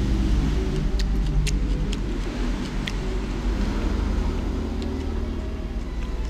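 Steady low rumble of a motor vehicle engine, growing louder about halfway in, with scattered light clicks over it.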